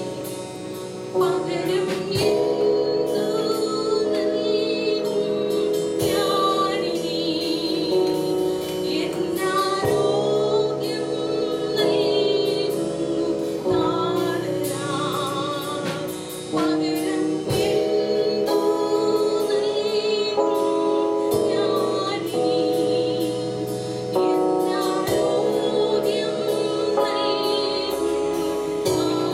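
Live gospel praise-and-worship music: voices singing a worship song with instrumental accompaniment.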